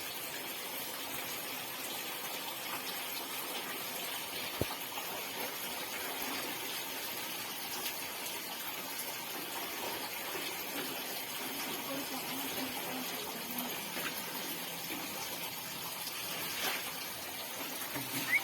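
Steady running water, an even rushing hiss that does not change, with a single sharp click about four and a half seconds in.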